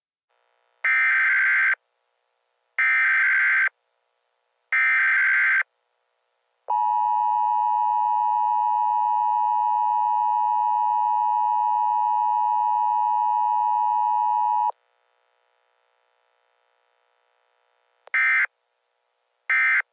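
Emergency Alert System signals: three loud bursts of digital header data, each about a second long and two seconds apart, then the steady two-tone EAS attention signal for about eight seconds, then three much shorter data bursts near the end.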